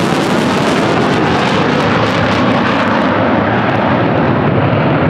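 Loud, steady jet noise from a Boeing EA-18G Growler's two General Electric F414 turbofans; the high hiss dulls about three seconds in as the jet pulls away.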